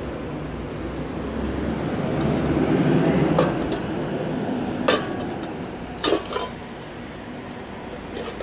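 Stainless steel bowls knocking together about three times, each knock with a short metallic ring, over a steady street rumble that swells around three seconds in.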